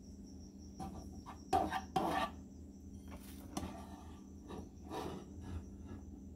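A plastic spatula scraping and knocking against a frying pan in a series of short strokes, the loudest two about a second and a half to two seconds in.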